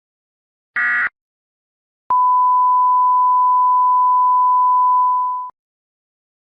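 The last of three short Emergency Alert System (SAME) end-of-message digital data bursts. About a second later comes a steady single-pitch tone near 1 kHz, which holds for about three and a half seconds and then cuts off.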